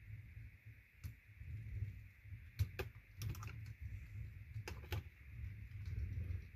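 Plastic LEGO Technic gears and parts clicking as the model is worked by hand, with scattered sharp clicks, a cluster midway and another about two-thirds through, over a low handling rumble.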